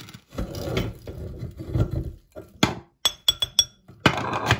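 Metal meat grinder parts being handled and taken apart: a rough scraping rub, then a sharp click and several short, ringing metallic clinks, and a scrape near the end as the perforated cutting plate comes off over the cross blade, with sawdust still packed inside.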